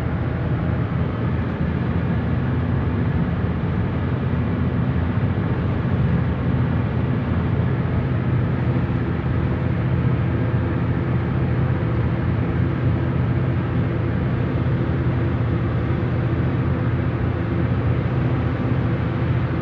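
Steady road and engine noise heard from inside the cabin of a Nissan car cruising at about 100–110 km/h: an even low rumble with hiss over it.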